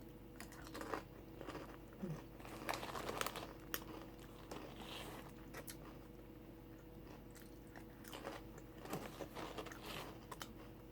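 Close-up crunching and chewing of thin, bubbly crisps in a mouth, in bursts of crackly bites and chews: about a second in, around three seconds, and again from about eight seconds until near the end.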